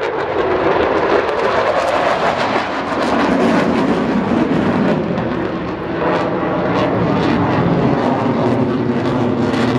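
Display aircraft flying past, its engine note dropping in pitch over the first three seconds and then holding as a steady, loud drone.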